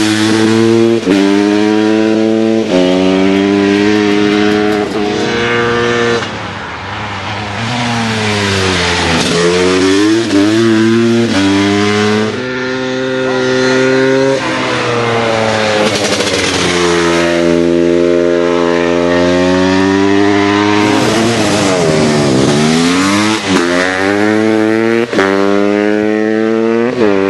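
Racing motorcycles accelerating hard up a hill climb course, one after another. Each engine revs up and drops in pitch at every gear change as the bike climbs.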